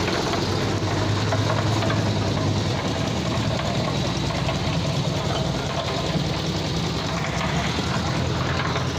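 Engine of a portable drum concrete mixer running steadily: a continuous low drone.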